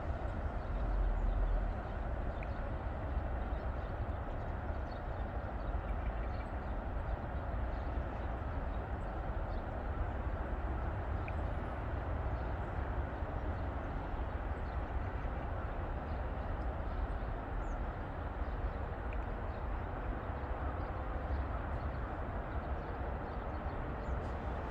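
Steady outdoor background noise with a strong low rumble, swelling briefly about a second in, and a few faint ticks.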